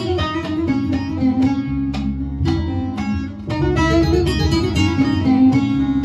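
Bağlama (long-necked Turkish saz) playing a fast plucked instrumental passage of a Turkish folk song, over a low sustained backing, without singing.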